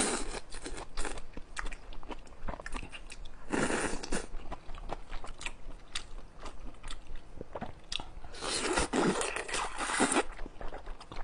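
Close-miked eating of wide Chinese glass noodles: noodles slurped up with a rushing, sucking sound near the start, again about three and a half seconds in, and for about two seconds near the end, with wet chewing and smacking clicks in between.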